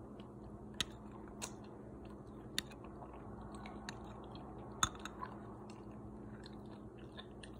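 Close-up chewing and mouth sounds of someone eating a bean and millet soup, with a few sharp clicks, the loudest about five seconds in. A steady low hum runs underneath.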